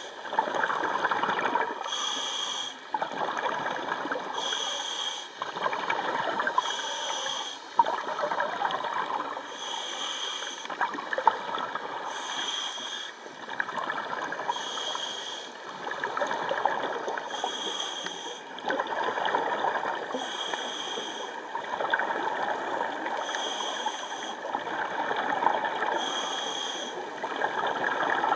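Scuba diver breathing through a regulator underwater: a short hissing inhalation about every two and a half seconds, alternating with bubbling exhalations.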